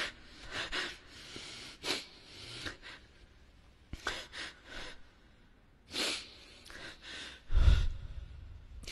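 A man weeping into a close microphone between verses of Quran recitation: sobbing, gasping breaths and sniffs in short bursts with gaps between them. A low thud near the end.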